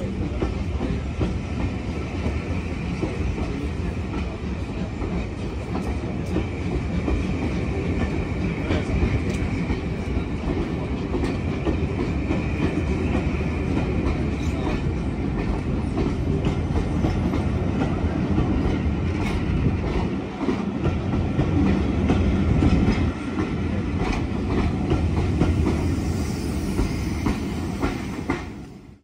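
A rake of BR Mark 1 passenger coaches rolling slowly past, with a steady rumble and the wheels clicking over rail joints.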